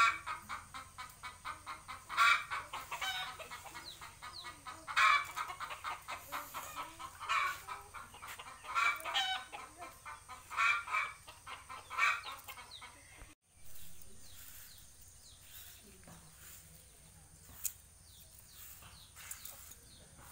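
Chickens clucking, a string of loud bursts of rapid clucks; about two-thirds of the way through the sound cuts off and the chickens drop away to a quiet background.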